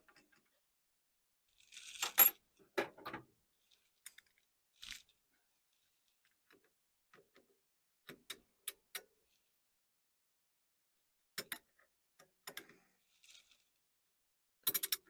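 Steel tubing and a hand tube bender being handled: scattered metallic clicks and clinks with pauses between them, the loudest cluster about two seconds in and a quick run of clicks near the end.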